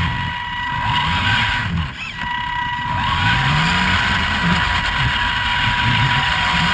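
Vaterra Twin Hammers RC truck driving on gravel: its electric motor and drivetrain whine rises and falls in pitch with the throttle, with one clear rising sweep about halfway through. A steady thin high whine runs under it, along with the rough crunch and rattle of the tyres and chassis on loose gravel.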